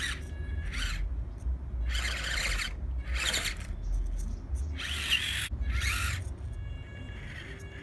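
Tiny brushed motor and gears of a 1/25-scale Pro-Line Ambush RC rock crawler whining in short throttle bursts, about five of them, as it claws up a steep wooden plank. It goes quieter near the end.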